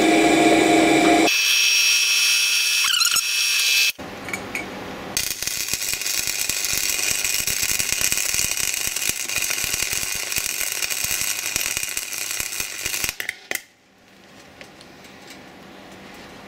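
A pillar drill on its slowest speed boring through a stack of steel bracket plates, shifting to a higher squealing note about a second in. At about four seconds it gives way to flux-core MIG welding: a steady crackling and spitting for about nine seconds that stops abruptly, leaving only faint background.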